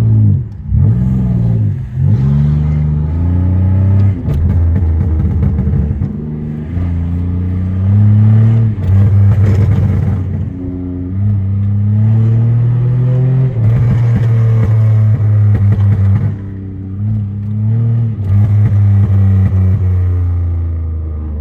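Tuned, catless Pontiac Grand Prix GT's 3.8-litre V6 revved hard in low gear again and again, its pitch climbing and dropping, with crackling exhaust burbles each time the throttle is lifted.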